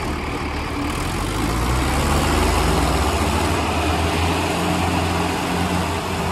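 Diesel tractor engine running hard, revving up a little about a second or two in, then holding steady.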